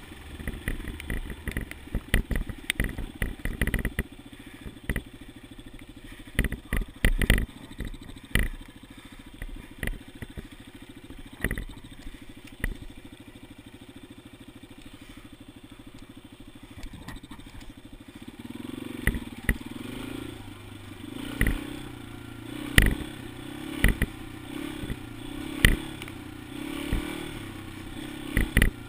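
2013 Yamaha XT250's single-cylinder four-stroke engine running, heard from a camera on the bike: low and steady through the middle, then louder and rising and falling after about two-thirds of the way in. Frequent sharp knocks and clatter throughout.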